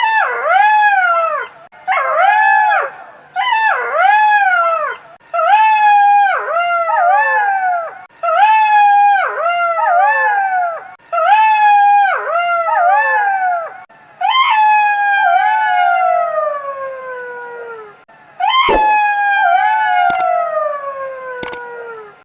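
Red fox calling: a run of short, pitched, arching calls in pairs and threes, one group every second or two, followed by two longer calls that slide down in pitch. A few sharp clicks come near the end.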